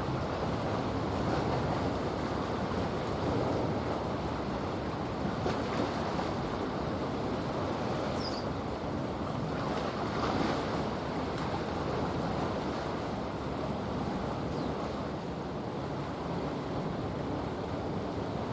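Steady outdoor wash of wind and water, with wind buffeting the microphone. A brief high chirp comes about eight seconds in.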